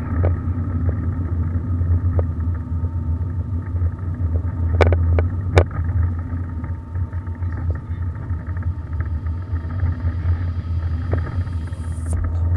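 Fiat 500 Abarth's 1.4-litre turbocharged four-cylinder and its road noise, heard from inside the cabin while driving, a steady low drone. Two sharp clicks about five seconds in.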